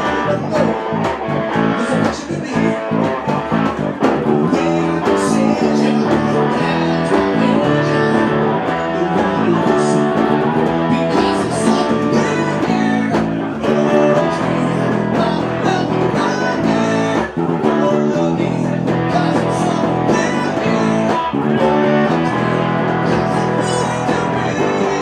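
Live rock band playing an instrumental passage: electric guitar and bass guitar over hand drums (congas), with a steady beat.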